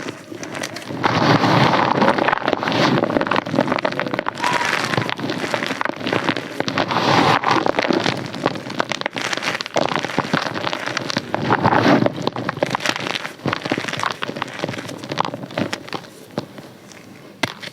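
Close-up crunching and crackling: a dense run of small cracks that swells and eases in waves, then dies down over the last couple of seconds.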